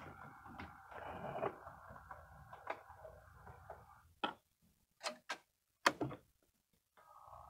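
HO scale model diesel locomotive running slowly, its motor and gears giving a steady whine with faint ticking. About four seconds in it stops and the whine cuts off, a few sharp clicks follow, and it starts running again near the end.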